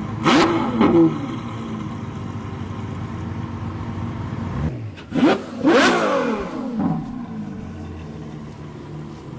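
Ferrari F12 Berlinetta's V12 engine blipping hard twice, about half a second in and again about five seconds in, its pitch falling away after each burst, with the engine running steadily in between.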